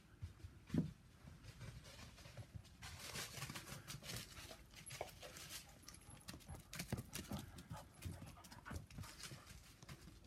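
Gordon Setter puppy's paws thudding irregularly as it runs, with one louder thump about a second in and rustling noise from about three seconds on.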